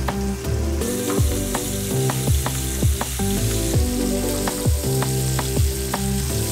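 Flour-coated peeled prawns shallow-frying in hot oil in a pan, a steady sizzle that comes up about a second in, under background music with a beat.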